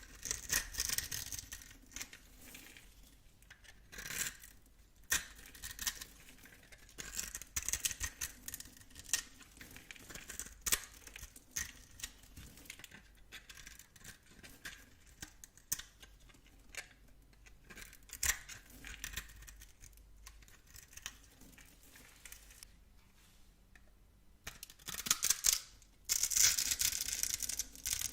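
Knife cutting through dry bar soap: crisp crackling and scraping strokes in bursts, with quieter stretches between and a louder run of cutting near the end.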